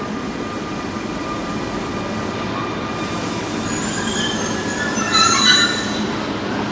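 Train rolling slowly into a station with its wheels squealing on the rails: thin high squeals over a steady rumble, with a hiss joining about three seconds in and the squeal loudest around five seconds in.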